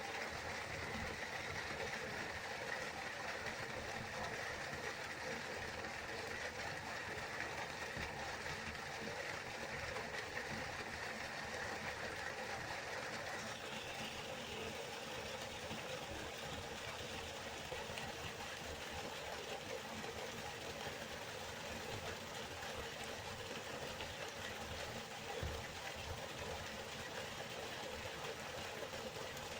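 Waterfall: a steady rush of falling water. Its tone shifts slightly about halfway through.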